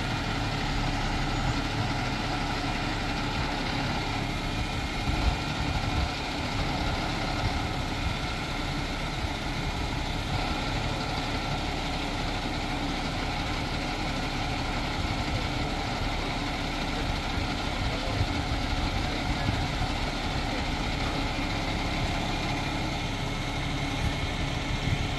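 Boom truck's diesel engine running steadily while it powers the truck-mounted crane, with a couple of brief knocks about five and six seconds in.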